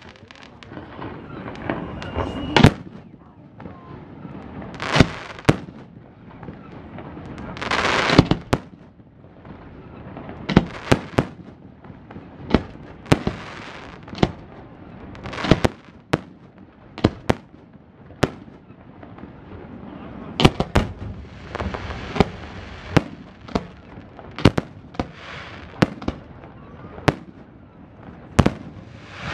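Aerial fireworks display: shells bursting in a long, irregular series of sharp bangs that come thicker in the second half. A few longer hissing rushes sound between the bangs.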